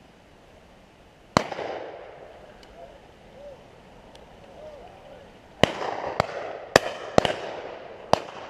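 Shotgun shots at driven pheasants: one loud, close shot about a second and a half in, then a quick run of five more shots of varying loudness from about halfway, with a couple of faint distant shots in between.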